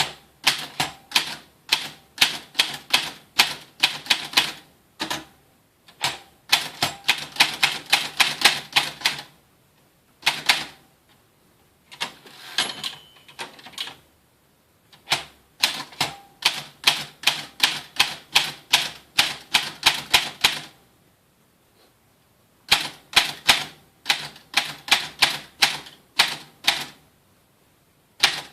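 Rheinmetall typewriter being typed on: runs of sharp key strikes, several a second, broken by short pauses.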